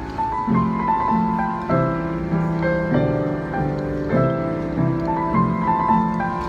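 Solo piano playing a pop ballad arrangement: a melody over low left-hand chords struck at an even, moderate pace.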